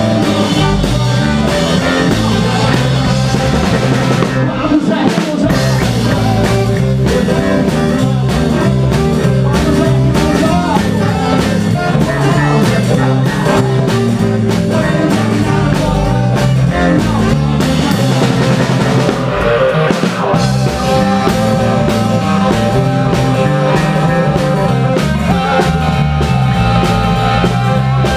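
Rockabilly band playing live, with the drum kit close and prominent, and electric guitar and singing over a steady beat.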